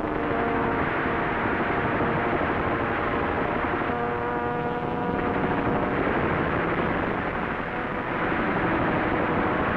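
Aircraft piston engines droning steadily, a dense noise with several held tones that drift a little in pitch, on a worn 1940s film soundtrack.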